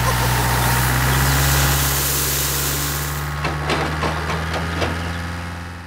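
Tractor engine idling steadily, with a scatter of small clicks and knocks a little past the middle as the gravel load and tipping trailer settle. It fades out at the end.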